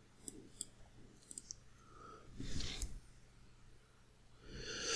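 A pause in a man's close-miked narration: a few faint mouth clicks, a soft breath about halfway through, and a louder intake of breath starting near the end.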